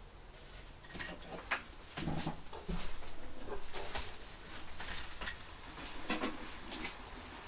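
Irregular clicks, light knocks and rustling of things being handled close by, with no steady motor sound.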